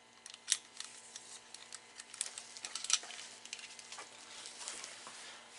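Handling noise of an AR pistol and a paracord sling with metal carabiners: scattered small clicks, clinks and rustling as the strap is clipped on and the gun is swung over the shoulder. The sharpest clicks come about half a second and three seconds in.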